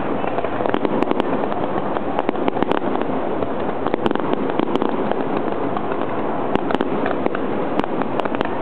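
Aerial firework shells bursting in a dense barrage: a continuous crackling rush packed with many sharp pops and reports.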